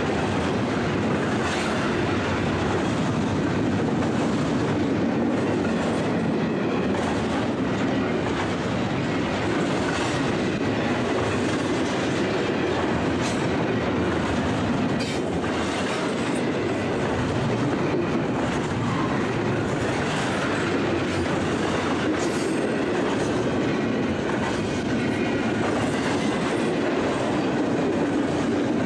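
Double-stack container train of loaded well cars rolling steadily past at close range: a continuous rumble and rattle of wheels on rail, with a sharp click from the wheels now and then.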